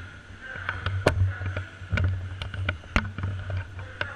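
Scattered sharp shots from players' guns in a skirmish game, about a dozen at irregular spacing, some loud and close, over a low rumble of movement and handling noise.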